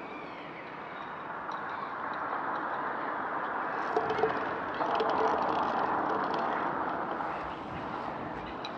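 A vehicle driving past on the street: a steady rush of tyre and engine noise that swells to a peak around five seconds in, then fades.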